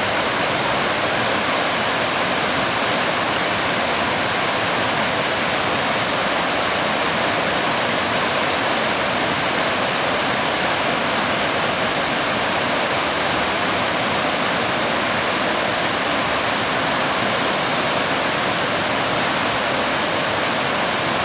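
Whitewater of a spring-fed river rushing and splashing over rocks in a small cascade, a steady, even rush.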